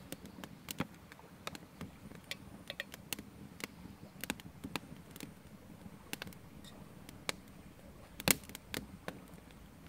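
Small wood campfire in a stone fire ring crackling: scattered, irregular sharp pops, the loudest a little after eight seconds in.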